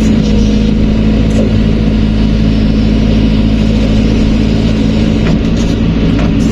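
Heavy diesel engine of construction machinery running steadily at a constant pace, with a few faint clanks over it.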